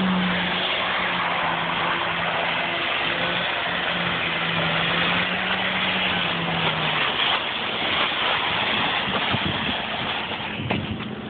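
Mazda RX-8's two-rotor rotary engine running at a steady note under a loud rushing noise as the car slides in the snow; the engine note fades out about seven seconds in, and a few knocks come near the end.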